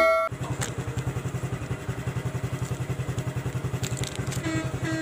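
Motorcycle engine running steadily at low revs, an even, rapid putter at constant pitch. A short music jingle cuts off right at the start.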